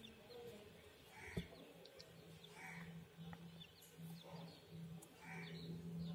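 Week-old bantam chicks peeping softly and sporadically. A single sharp click comes a little over a second in, and a low steady hum starts just after it.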